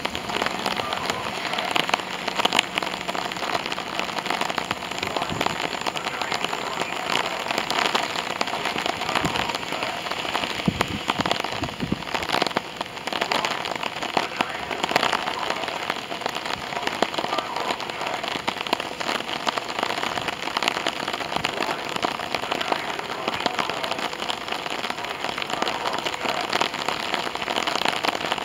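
Steady rain falling on the station platform and tracks, a dense patter of many small drop ticks close to the microphone.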